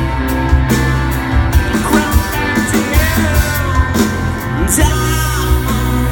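Live rock band playing, a voice singing over keyboard, electric guitar and heavy bass, heard from the audience through a phone's microphone.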